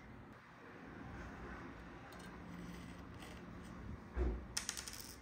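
Faint handling noise while a diecast model airliner is unboxed in its foam tray. About four seconds in there is a soft knock, then a brief crinkly rustle.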